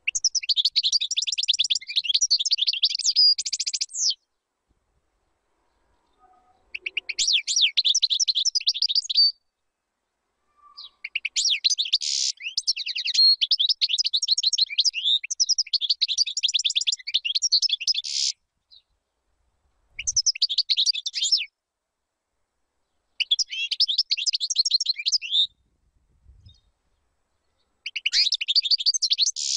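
European goldfinch singing: fast, tinkling twittered phrases of rapid high notes. Six bursts of song are separated by pauses of one to three seconds, the longest phrase lasting about seven seconds in the middle.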